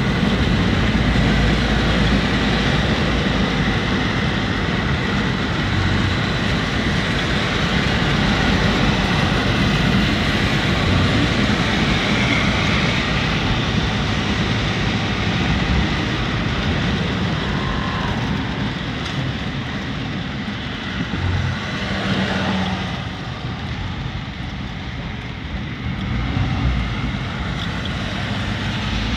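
Steady noise inside a car moving through heavy rain: rain on the body and windscreen together with tyres hissing on the wet road. It eases off for a few seconds near the end.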